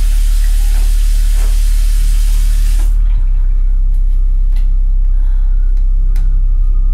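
A loud, steady low hum with the hiss of a bathroom tap running over it; the water cuts off suddenly about three seconds in, leaving the hum and a few faint scattered crackles.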